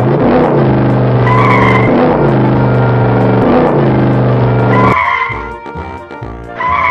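Motorcycle engines running loudly, with a short tyre squeal about a second and a half in. The engines cut off about five seconds in, and music with organ-like tones carries on.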